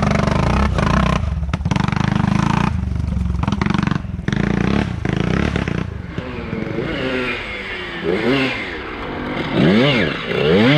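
Vintage dirt bike engines: a steady engine drone broken by brief dropouts through the first half, then a bike's engine revving up and down several times in quick rises and falls near the end.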